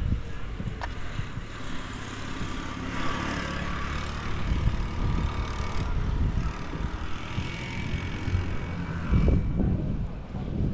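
A vehicle engine running steadily for several seconds, with low rumbles near the end.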